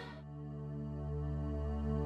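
Ambient background music: low, sustained tones that slowly swell. A brighter song cuts off right at the start.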